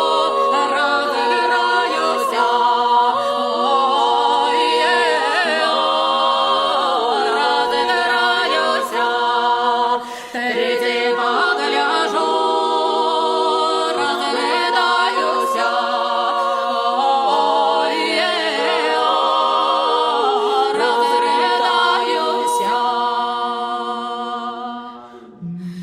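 Male vocal quartet singing a Russian folk song a cappella in close harmony, fading out near the end.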